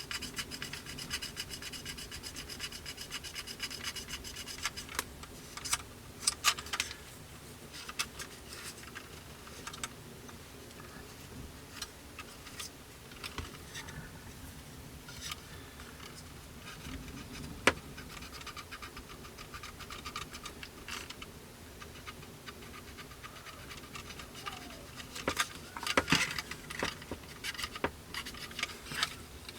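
Intermittent soft scratching and rubbing on a plastic model kit's surface as dried filler is rubbed back with isopropyl alcohol. A sharp click comes about two-thirds of the way in, and a burst of louder scratches comes near the end.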